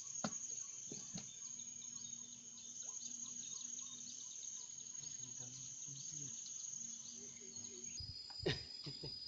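Steady high-pitched drone of insects with scattered bird chirps; the drone shifts slightly lower in pitch about eight seconds in. A single sharp knock comes about eight and a half seconds in.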